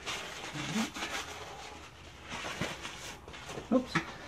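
A cloth in gloved hands rubbing and wiping a freshly oil-quenched knife blade that is still warm, in uneven scrubbing strokes. Two sharp knocks come near the end.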